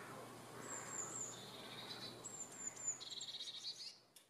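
A small songbird singing two phrases. Each phrase is a few high, thin descending notes followed by a fast trill lower down. The song fades out near the end.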